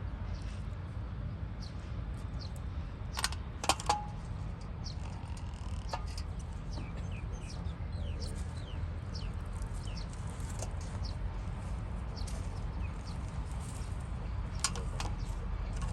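Small birds chirping repeatedly in short, high, falling notes over a low steady rumble, with a few sharp metallic clicks about three to four seconds in and again near the end.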